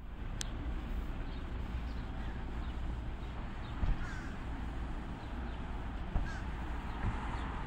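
Steady low outdoor background rumble with a few short bird calls, the loudest about four seconds in and again about six seconds in.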